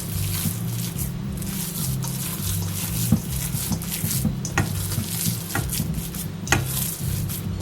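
Ground beef mixed with breadcrumbs, egg and milk being mixed: a steady wet squishing with many short squelches.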